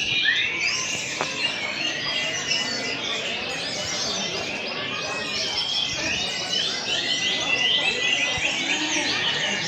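Many brown-chested jungle flycatchers (SRDC) singing at once, a dense tangle of overlapping chirps, trills and short whistles over a low background hubbub.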